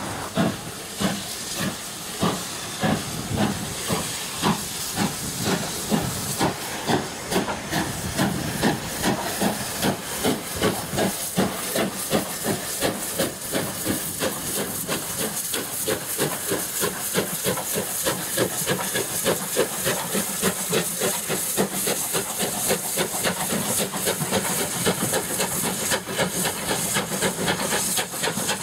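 USATC S160 2-8-0 steam locomotive working hard with a train, its exhaust chuffing in regular beats that quicken from about one and a half a second to three or four a second as it gathers speed, over a steady hiss of steam.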